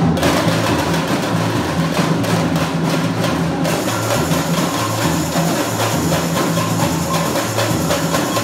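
A Brazilian university bateria, a samba percussion band, playing a continuous rhythm on drums: recurring low drum notes under dense, fast strokes of smaller drums.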